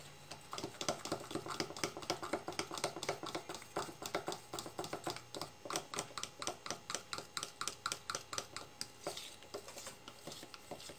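A spoon stirring sweetened condensed milk and lemon juice in a bowl, clicking against the bowl's side in an even rhythm of about four strokes a second that thins out near the end.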